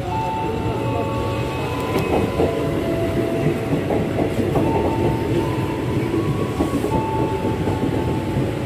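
KRL Commuter Line electric train pulling into the platform, its carriages passing close by. It makes a steady low rumble with wheels clacking over the rail joints, a sharp clack about two seconds in, and steady whining tones over the top.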